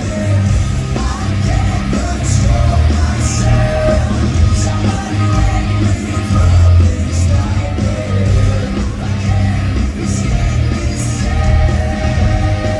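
Live hard rock band playing loudly: heavy guitars, bass and drums with cymbal hits about once a second, and a sung vocal line with held notes.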